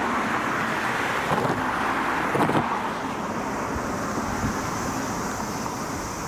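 Steady outdoor vehicle noise with wind on the microphone, with a couple of brief knocks in the first half.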